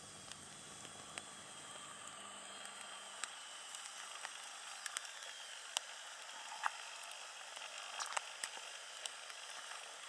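Sausage slices on skewers sizzling over campfire embers: a faint steady hiss with a thin high-pitched squeaking whine running through it, and scattered crackling pops from the coals.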